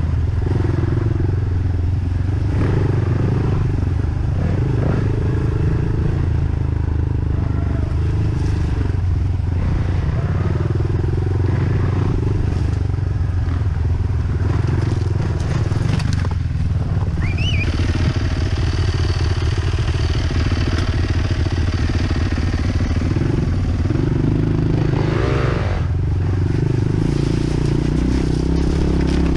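Dirt bike engine running steadily while riding a trail, with a few short rising squeals, once about halfway through and again near the end.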